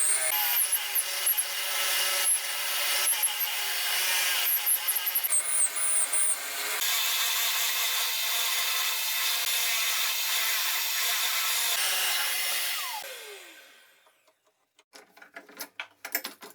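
A drill press is running with a hole saw boring lengthwise into a wooden block, a steady grinding rasp with high squeaks in the first few seconds. About thirteen seconds in the motor is switched off and winds down in falling pitch, followed by a few light clicks and knocks.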